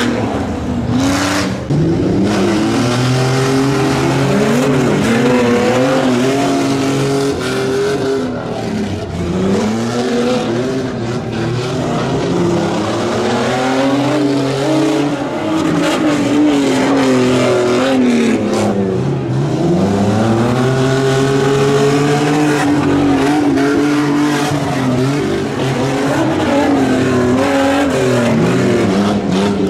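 Race pickup truck engine revving hard, its pitch climbing and falling again and again as the throttle is opened and lifted around a dirt track. There is a deep drop in revs near the two-thirds mark before it climbs again.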